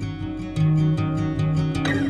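Background music on acoustic guitar, plucked notes over a steady bass line.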